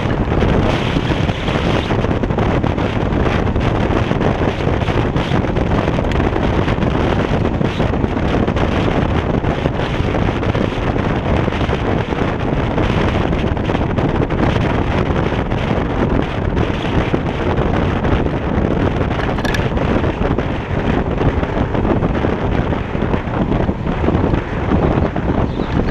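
Steady wind noise buffeting the microphone over the road rumble of a Kaabo Wolf King GT electric scooter riding along a paved street.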